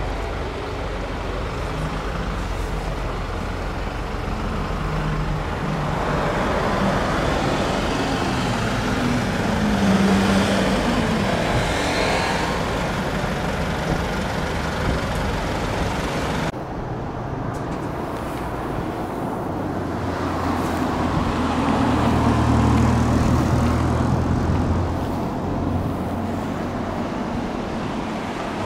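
Heavy tractor-trailer and escort vehicle driving slowly past, engine note rising and falling over the steady rumble of tyres. It cuts off abruptly about halfway through, giving way to road traffic: cars passing and a low engine hum swelling and fading.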